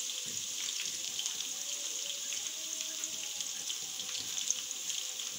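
Sliced onions frying in hot oil in a karahi: a steady sizzle with fine crackles.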